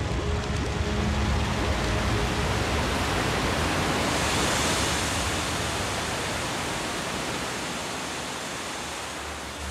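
Loud steady hiss of water hitting molten lava and flashing to steam, swelling about halfway through and then slowly dying away, over a low rumble at the start.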